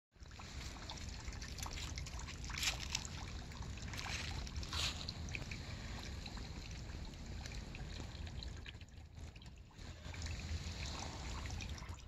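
Water trickling and dribbling over a low concrete ledge into a shallow pool, a steady wash of sound with a few brief louder noises around three and five seconds in.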